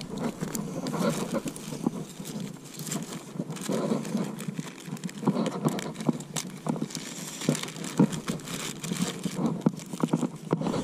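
Rustling and crinkling of plastic zip-lock bags and paper band-aid wrappers being rummaged through and handled, with many irregular small clicks and crackles.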